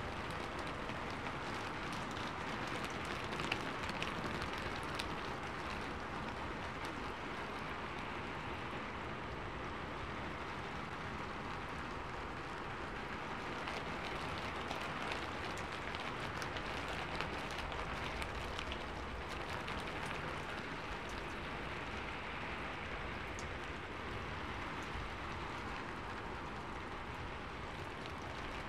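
Steady rain falling on a lake surface and the shore, with many small individual drop hits ticking through the even hiss of the rain.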